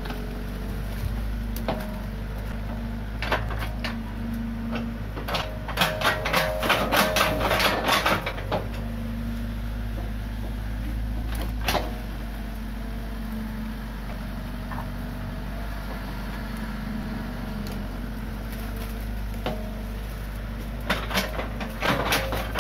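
Komatsu PC45 mini excavator's diesel engine running steadily while it digs wet mud, with bursts of knocking and clatter from the working bucket, heaviest from about five to eight seconds in and again near the end.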